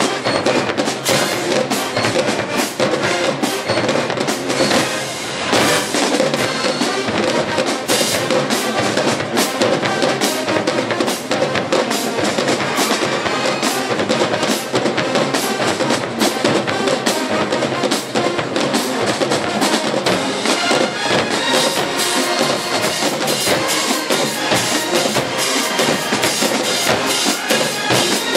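HBCU marching band playing in the stands: brass section over a drumline, with bass drums and snare drums beating a steady rhythm of sharp hits.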